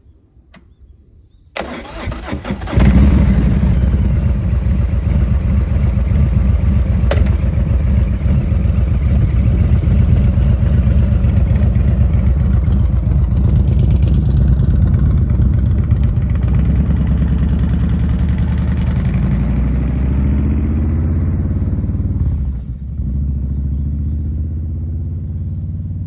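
Harley-Davidson Heritage Classic's Milwaukee-Eight V-twin, through a Rinehart exhaust, starts up about a second and a half in and then runs loud and steady as the bike pulls away. Its sound drops sharply a few seconds before the end.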